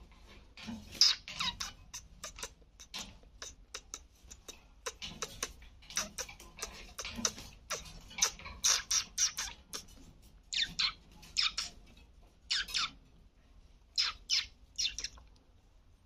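Alexandrine parrots giving short, harsh squawks and chirps in quick irregular runs, a few of the longer calls in the second half sliding down in pitch.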